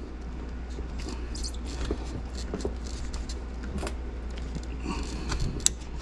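Faint scattered clicks and small scrapes of fingers working a rubber hose on the plastic outlet of a dishwasher water inlet valve, over a steady low hum.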